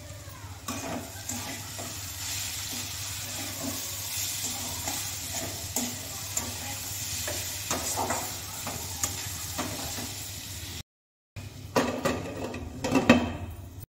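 Spiced potato sticks sizzling in mustard oil in an aluminium kadai, stirred with a spatula that scrapes and clicks against the pan. Near the end a metal lid clatters onto the kadai.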